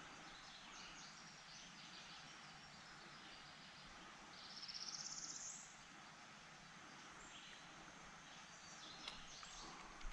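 Quiet outdoor ambience with faint bird chirps. About halfway through, a short rising trill of rapid pulses lasts just over a second.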